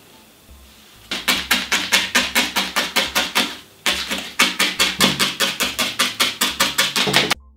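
Barbed felting needle stabbing rapidly through wool into a polystyrene foam block, about six crunchy strokes a second, with a short break partway through. It cuts off suddenly near the end.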